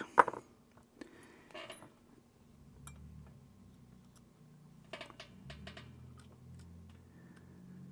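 Small, sharp clicks and taps of hand tools and watch parts handled close to the microphone: a loud click at the start, then scattered fainter ticks. These are the sounds of working on an opened Casio G-Shock watch module.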